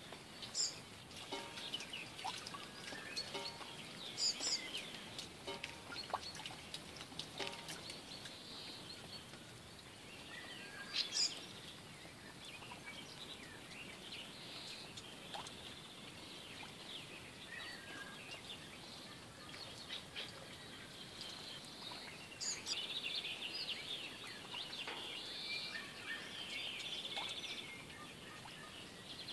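Songbirds chirping and calling over a faint steady outdoor background, with a few louder, sharp high calls standing out now and then.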